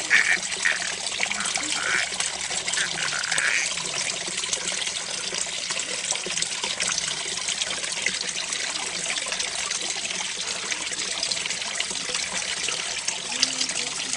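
Water from an outdoor play fountain, splashing and trickling steadily, with a few short high-pitched sounds in the first few seconds.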